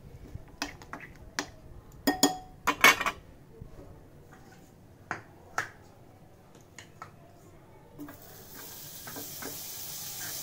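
Metal utensils clinking against a small bowl and plate, a string of sharp clinks, loudest in a cluster about two to three seconds in. About eight seconds in, butter dropped onto a hot nonstick tawa starts sizzling with a steady hiss.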